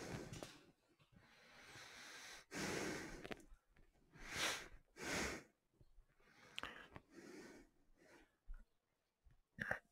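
A man breathing through a face mask close to a headset microphone: several soft breaths, with a few faint clicks later on.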